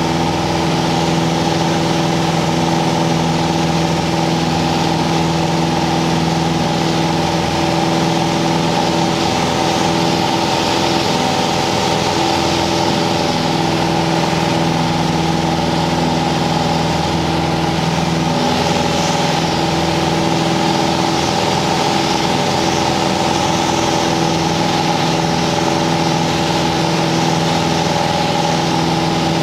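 Single-engine light aircraft's engine and propeller, heard from inside the cockpit while running steadily at flight power.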